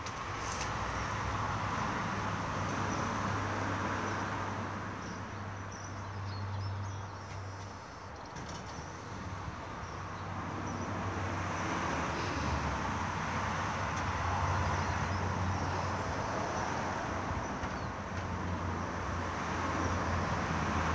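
Distant refuse lorry's diesel engine running, a steady low hum under a broad noise that swells and eases, mixed with passing road traffic.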